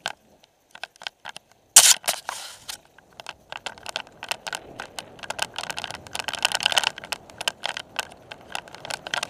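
Mountain bike rattling and clattering as it is ridden fast down a dirt forest trail: a steady stream of sharp clicks, knocks and crackles from the frame, chain and tyres on the rough ground, opening with one loud knock about two seconds in.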